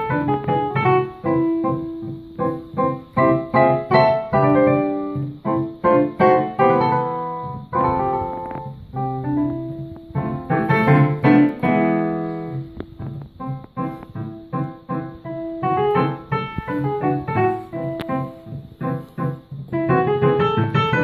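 A digital piano being played by hand: a continuous run of notes and chords at a moderate pace.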